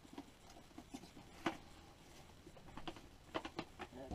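Plastic cling wrap being pulled from its box and handled around a turkey breast on a plate: scattered soft crinkles and small taps, the sharpest about a second and a half in and a few more close together near the end.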